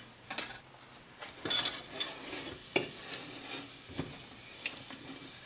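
Wire whisk stirring in a small metal saucepan of melting shea butter and coconut oil, with irregular clinks and scrapes against the pan.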